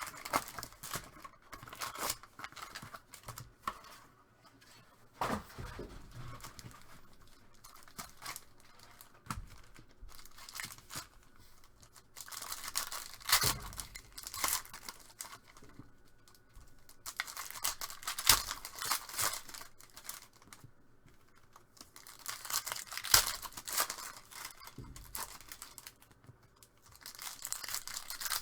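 Plastic trading-card packaging being torn open and crinkled, in several bouts of ripping separated by quieter stretches of handling.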